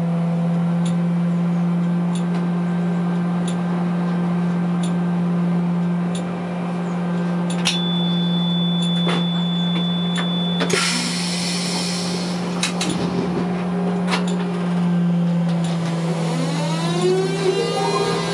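Škoda 15TrM trolleybus standing with a steady electrical hum and occasional clicks. About eight seconds in a high steady beep sounds for three seconds and ends in a burst of air hiss. Near the end the electric drive's whine sweeps up and down as the trolleybus pulls away.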